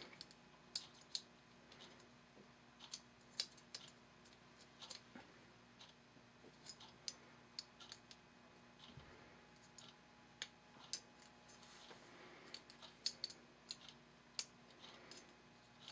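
Faint, irregular clicks and taps of small metal parts of a .36 calibre 1851 Navy cap-and-ball revolver being handled and fitted into its frame, coming a little more often near the end.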